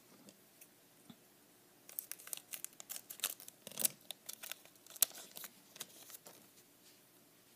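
A shiny-wrapped trading card pack torn open by hand: a quick run of sharp crinkles and rips that starts about two seconds in and dies away about six seconds in.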